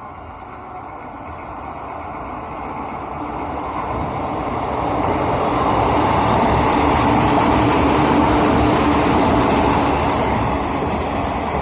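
JR Shikoku 113 series electric train running past. Its noise builds over about six seconds to a peak and then eases off a little near the end, with a steady hum under the running noise.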